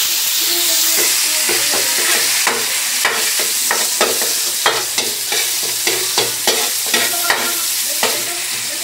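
Chopped garlic sizzling in hot oil in a pan, browned, while a utensil stirs it, scraping and knocking against the pan about twice a second.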